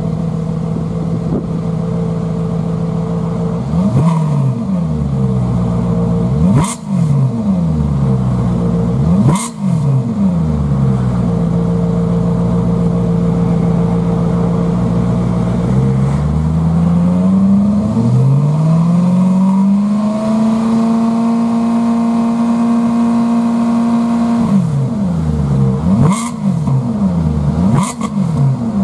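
Maserati GranTurismo MC Stradale's 4.7-litre V8 through a Bertocchi exhaust with a front catalyst-replacement pipe and a collector centre pipe joining both banks. It idles between sharp throttle blips, climbs to a higher rpm held steady for about four seconds, then gives a run of quick blips near the end.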